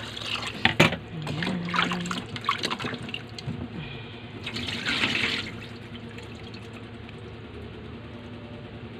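Water poured by hand into an aluminium pot of pork bones, splashing over the meat, then poured off into a stainless steel sink: the bones being rinsed before boiling. A sharp knock comes about a second in, and the pour is loudest around the middle before it settles to a quieter trickle.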